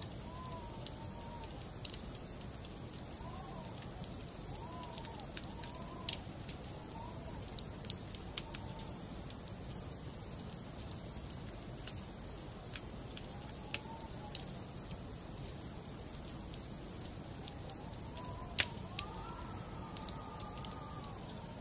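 A wood fire burning in a fireplace, with a steady low rush and scattered sharp crackles and pops, the loudest pop about three-quarters of the way through. Faint short warbling whistle-like notes come and go, most clearly near the start and the end.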